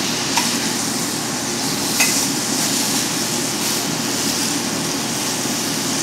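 Frog legs sautéing in a hot pan: a steady sizzle, with light clicks about half a second and two seconds in.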